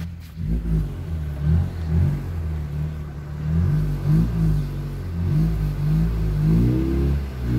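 A vehicle engine running at low revs, heard from inside a car, rising and falling in pitch several times as it pulls along slowly. The rise is most marked near the end.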